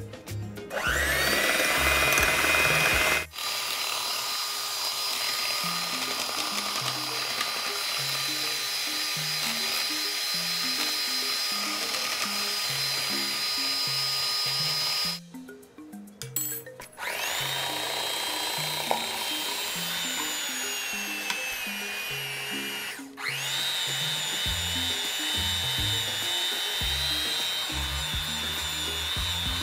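Electric hand mixer running, its beaters whirring through funnel cake batter with a steady high motor whine that breaks off briefly about halfway and starts again. Background music plays underneath.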